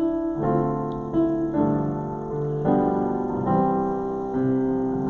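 Electric piano or keyboard playing the introduction to a worship song, sustained chords changing about once a second.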